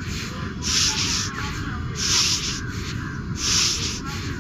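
A person breathing deeply and forcefully in a yoga lung-cleansing breathing exercise, three loud hissing breaths about a second and a half apart, over a steady low background noise.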